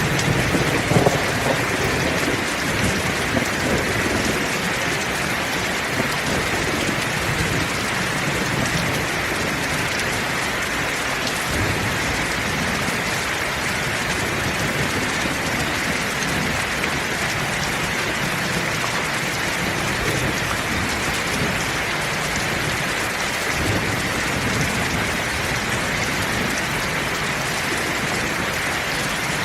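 Heavy rain falling steadily in a thunderstorm, an even hiss of downpour. A low rumble of thunder dies away in the first second or two, with fainter low rumbles now and then after.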